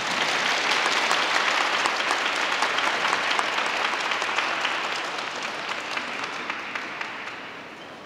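Audience applause in an ice rink, dense clapping for a skater's finished program that gradually dies down toward the end.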